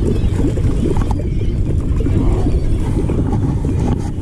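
Steady low rumble of wind buffeting the microphone aboard a small boat on open water.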